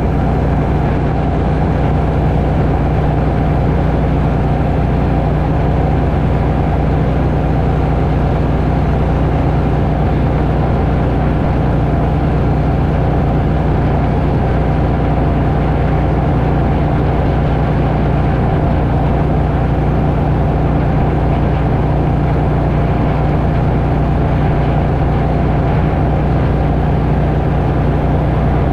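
Engine running steadily at an unchanging speed, loud and close to the microphone, a constant low drone with no change in pitch.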